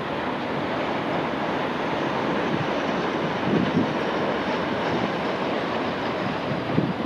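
Tohoku Shinkansen high-speed train passing at speed along an elevated viaduct: a steady rushing noise.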